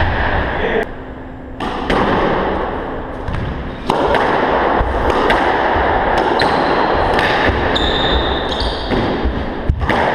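Squash ball being struck by rackets and cracking off the court walls in repeated sharp impacts, with short high squeaks of court shoes on the hardwood floor, over a steady background noise.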